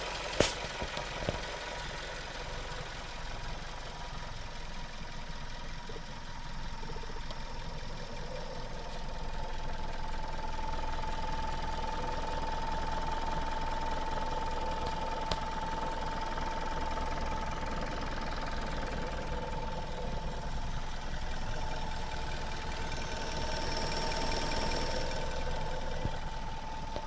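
Suzuki Swift Sport's 1.6-litre four-cylinder engine running warm at a steady idle, with a couple of sharp clicks about half a second and a second in. Its slightly rough sound is, by the owner's comparison with other Swift Sports, normal and not a fault.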